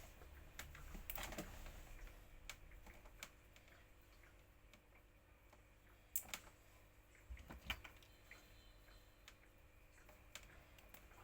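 Sparse light clicks and taps from small parts and hand tools being handled, irregularly spaced, over a faint low hum.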